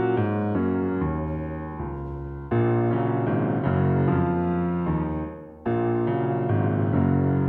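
Background piano music: slow held chords, with new chords struck about two and a half seconds in and again near six seconds.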